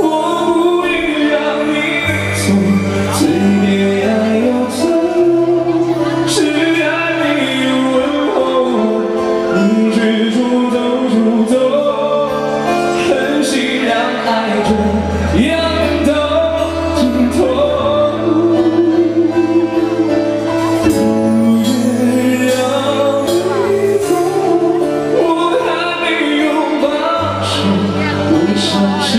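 A singer performing a song live to electronic keyboard accompaniment: a sung melody over sustained keyboard chords, with low bass notes that change every few seconds and scattered sharp high ticks.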